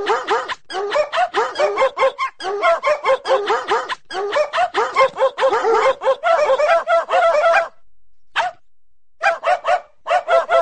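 A dog barking in fast runs of short barks, about four or five a second. The barks stop about eight seconds in, one single bark follows, and the runs start again near the end.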